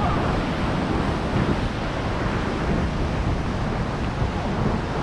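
Steady wind buffeting the microphone over ocean surf washing against the rocks.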